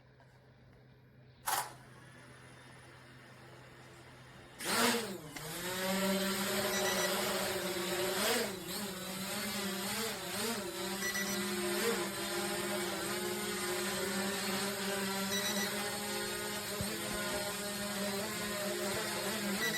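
Tolatoyus IDEA16 quadcopter drone's brushless motors and propellers spinning up about five seconds in with a short rising whine, then a steady buzzing hum as it flies, its pitch wavering briefly a few seconds later. A single short sharp sound comes about a second and a half in, before the motors start.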